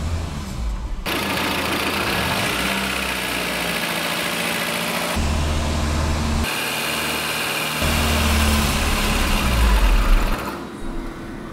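VAZ four-cylinder petrol engine running with diesel fuel in the crankcase in place of oil, heard from inside the cabin. Its sound changes abruptly in steps. The oil pressure warning light is flickering on at idle: low oil pressure from the thin diesel.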